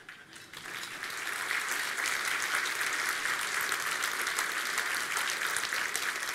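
Audience applauding. The clapping starts about half a second in, builds over the next second and then holds steady.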